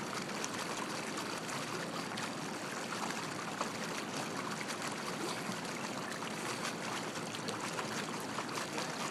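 Swimming-pool water lapping and splashing: a steady rushing wash full of small splashes and drips.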